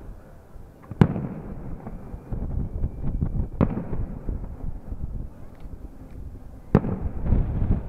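Aerial firework shells bursting: three sharp bangs a few seconds apart, with a low rumble and smaller pops between them.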